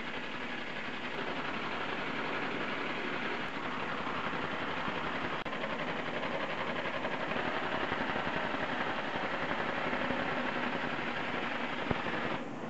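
Shop-built 2x72 belt grinder, driven by a treadmill's 3/4 horsepower motor, running with an old steel saw blade held against its worn abrasive belt: a steady grinding noise that grows slightly louder.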